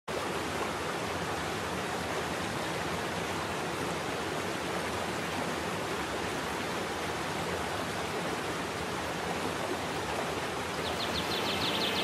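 Waterfall pouring into a pool: a steady, even rush of falling water. Near the end a bird starts a rapid, high chirping over it.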